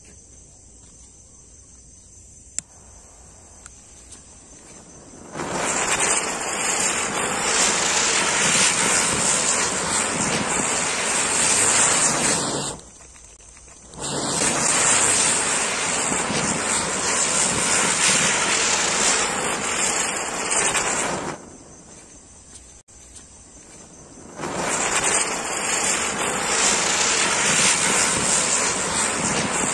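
Ashoka ground spinner fireworks (chakri) spinning and hissing loudly as they throw sparks. The hiss comes in three stretches of about seven seconds each, with short quiet gaps between them. Before the first one catches, crickets chirp steadily.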